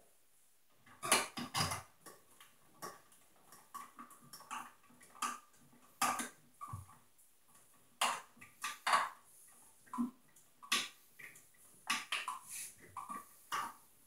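Irregular small clicks and knocks of hands and tools working the wiring at a blue plastic old-work electrical box.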